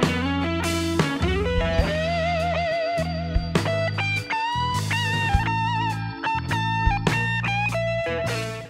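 Blues-rock instrumental played back through Swan D1010MKII powered active speakers: an electric guitar lead with vibrato over steady bass and sharp drum hits. It cuts off at the very end.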